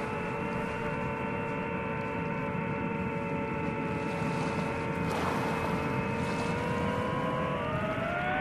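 DJI FPV drone's motors and propellers whining at a steady pitch over a rushing noise. Near the end the whine splits into several tones sliding up and down as the motors change speed in a banking turn.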